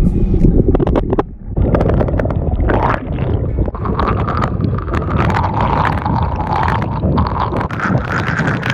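Muffled underwater sound from a camera submerged over a coral reef: a dense rumble of moving water with crackling bubbles, broken briefly about a second in, and a steadier whine joining about three seconds in.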